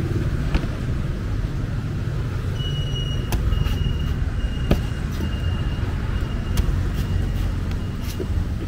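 Steady low rumble of street traffic, with a few sharp knocks scattered through it and a thin steady high tone in the middle part.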